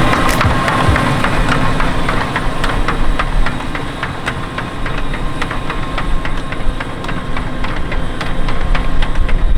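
John Deere 6250R tractor's six-cylinder diesel engine running steadily under ploughing load, with a rapid run of sharp clicking and knocking over it. It gets louder near the end.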